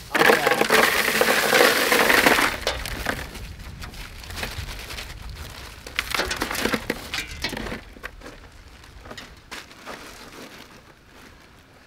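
Ice cubes poured out of a plastic bag into a hard plastic Yeti cooler. A loud clattering rush comes first, then scattered clinks and crackles as the last cubes fall and settle, fading away.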